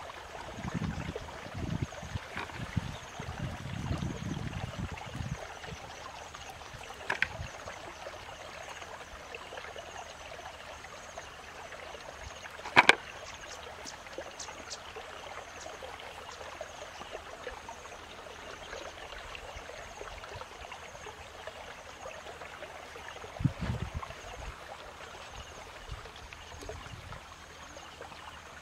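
Steady outdoor hiss, with irregular low rumbles in the first few seconds and again about 23 seconds in, and a single sharp click about 13 seconds in.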